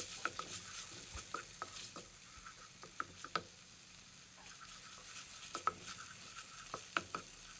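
Red curry paste frying in a little oil in a pan, a soft steady sizzle with frequent small crackles and clicks as it is stirred.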